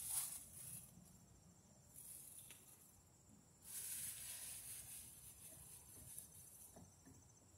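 Faint, high-pitched insect buzzing that swells and fades in waves, with a few light clicks.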